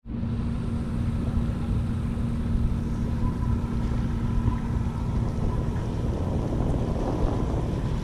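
Wind rumbling on the microphone over a steady low hum, which stops about six seconds in.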